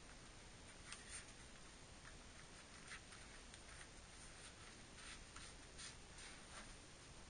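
Faint, irregular rustles and light scratches of laces being pulled through and wrapped around the metal hooks of a lace-up ankle brace, over a quiet hiss.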